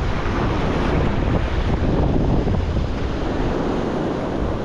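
Strong wind buffeting the microphone, a steady noise heaviest in the low end, over the wash of sea surf.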